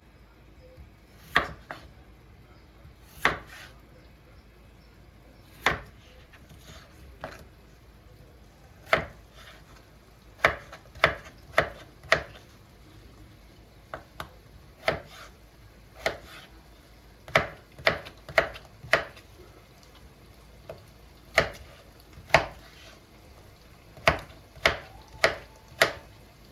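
A series of sharp knocks at an uneven pace, some in quick pairs or runs of three.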